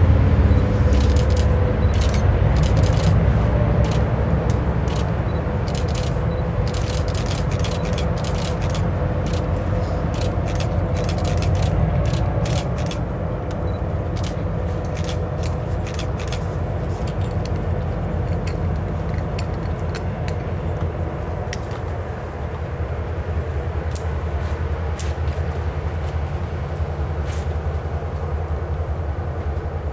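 Diesel locomotives hauling a passenger train upgrade, a steady low engine drone slowly fading, with many scattered sharp clicks, thickest in the first half.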